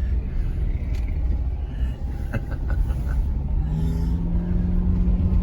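A car running, heard from inside the cabin: a steady low rumble, with a steady hum joining in about two-thirds of the way through.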